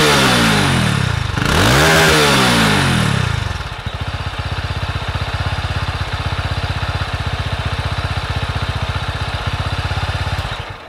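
Honda CB190SS single-cylinder engine heard at the exhaust: it is revved twice in the first three seconds, each rev rising and falling, then settles into a steady, rapidly pulsing idle. The sound stops suddenly near the end.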